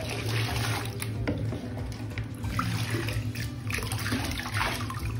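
Water sloshing and splashing in a bathtub while a wet dog is washed by hand.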